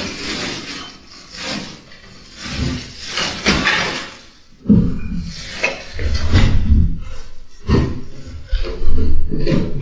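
Irregular rustling and knocking from a sack and belongings being handled, with heavier low thumps in the second half.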